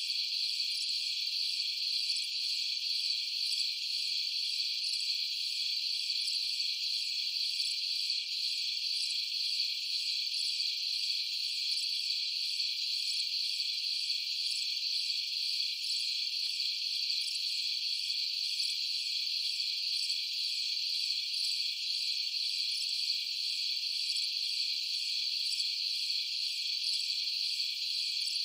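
Steady, high-pitched chorus of insects, an unbroken chirring that neither rises nor falls, with no low sounds under it.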